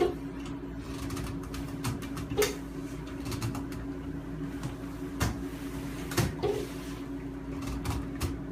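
Scattered light clicks and knocks of a tub spout being handled and screwed onto its pipe, over a steady hum.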